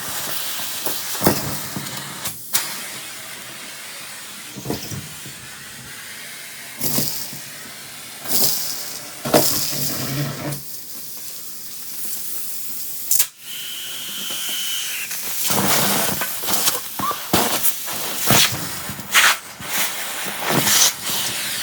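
Central vacuum running, its hose drawing a steady rush of air while picking up a mess, with irregular sharp clicks and rattles as debris is pulled through the hose.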